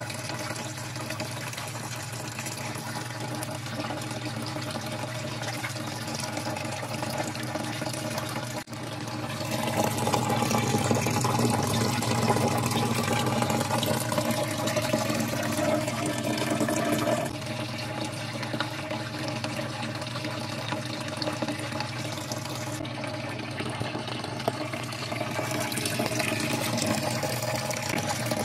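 Water running steadily, with a steady hum beneath it. It grows louder about ten seconds in and eases back down a few seconds later.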